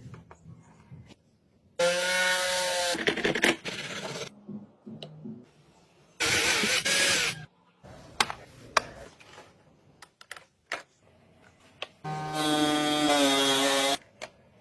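A small power tool run in three short bursts of one to two seconds each, two with a steady motor whine and one a harsher hiss, with scattered clicks and knocks of parts being handled in between.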